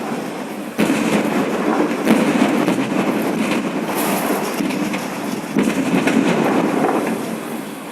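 Fire at a gas cylinder warehouse: a loud, steady rush of burning, escaping gas with dense crackling and popping. It eases off near the end.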